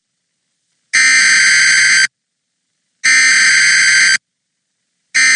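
Emergency Alert System SAME header data bursts: three harsh, buzzing digital screeches of about a second each, a second apart, with the third starting near the end. This is the encoded header that opens the next tornado warning.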